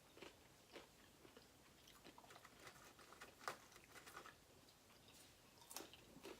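Faint chewing and biting of a steak burger and fries: scattered soft mouth clicks and small crunches, a little louder about three and a half seconds in and again near the end.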